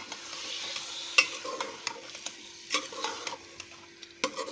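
Minced meat being stirred into onions frying in ghee in a metal pot: a soft sizzle, with a metal spoon clicking and scraping against the pot several times.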